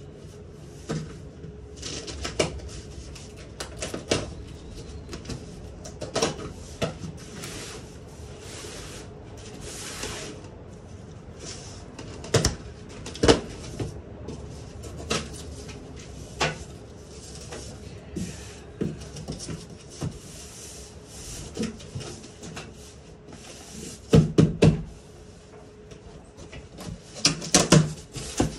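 A knife cutting open a large cardboard shipping box, with irregular scrapes, clicks and short hissy slitting sounds. Near the end there are louder crackles and thumps as the stiff cardboard flaps are pulled open. A faint steady hum runs underneath.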